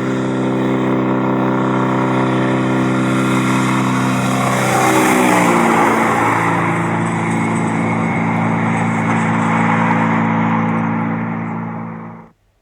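Diamond Reo truck's engine running as the truck drives by; its note drops in pitch about five seconds in, at its loudest, then carries on lower and cuts off abruptly near the end.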